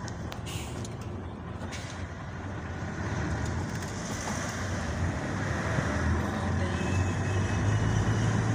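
Engine and road noise of a vehicle heard from inside its cab while driving. A steady drone whose low engine hum grows louder near the end.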